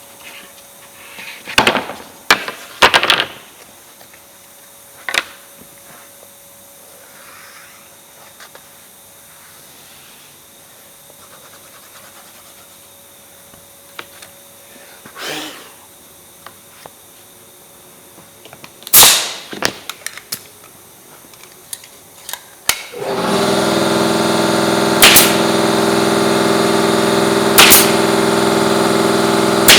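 Pneumatic brad nailer and stapler firing single shots into glued MDF strips at irregular intervals. About two-thirds of the way in, a steady motor starts up suddenly and keeps running while the nailer goes on firing.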